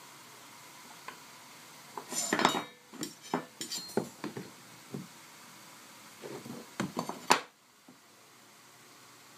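Clattering and knocking of small hard objects being handled, in two bursts: one about two seconds in lasting roughly three seconds, and a shorter one around six to seven seconds in, ending with a sharp knock.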